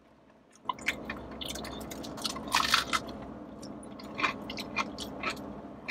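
A person chewing a mouthful of a crispy, flaky-crusted buffalo chicken crunch roll, the crust crackling irregularly as it is chewed. The chewing starts about half a second in.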